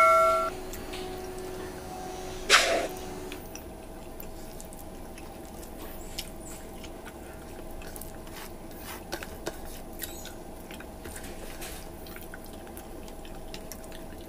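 Close-up eating sounds: small, scattered, wet clicks and smacks of hands pulling apart saucy stewed beef on the bone and of chewing, with one louder knock about two and a half seconds in. It opens on the fading ring of a notification-bell chime.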